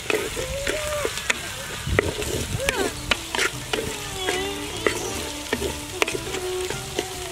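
Sliced shallots sizzling as they fry in oil in a clay pot, with a wooden spatula stirring them and scraping and clicking against the pot. Short pitched calls sound faintly in the background.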